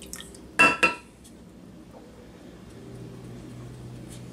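Glass measuring cup clinked twice in quick succession, each strike ringing briefly, followed by a faint low hum.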